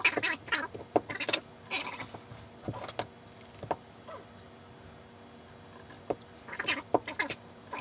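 Glass beer bottles and bottling gear clinking and knocking as they are handled during home-brew beer bottling, in short separate clinks with a small cluster near the end.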